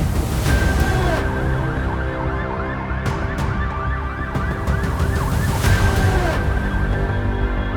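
Emergency vehicle siren in a fast up-and-down yelp, about three cycles a second, with a steady held tone before and after the yelping, over background music.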